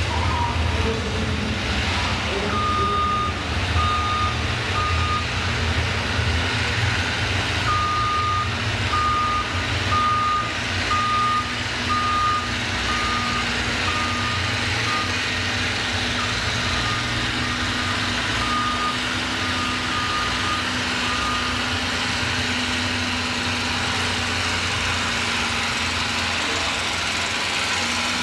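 A backup alarm beeps at one pitch, a little more than once a second, starting a few seconds in and fading out past the middle, over the steady low drone of engines running at slow speed.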